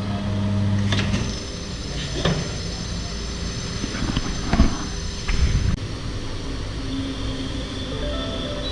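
Motorcycle tyre being worked onto its wheel rim on a tyre-fitting setup: a steady machine hum at the start, then several sharp metallic knocks and clanks, with a high steady whine through the middle.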